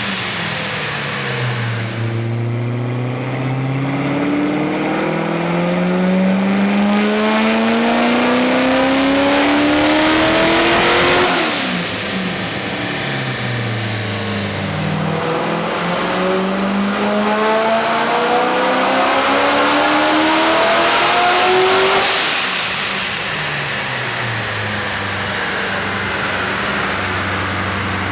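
V8 car engine making two long full-throttle pulls, revs climbing steadily for several seconds and then dropping off quickly, and settling to steady lower revs near the end.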